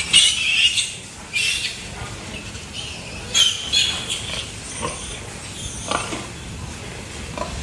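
Pigs squealing in repeated short, high-pitched bursts, loudest in the first second and again about three and a half seconds in.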